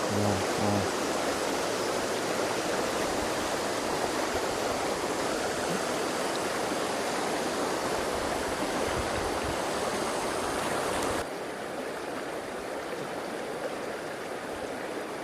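River rapids rushing steadily. The rush drops suddenly to a quieter level about eleven seconds in.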